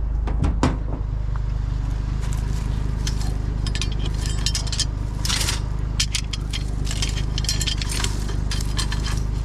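Metal clinking and scraping in many short, irregular clicks as scrap is handled and a tie-down strap is put on the load, over a steady low hum.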